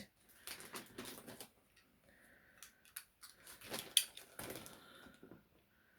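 Scattered clicks, scrapes and rustles of a cardboard parcel being handled and opened, with a sharper click about four seconds in.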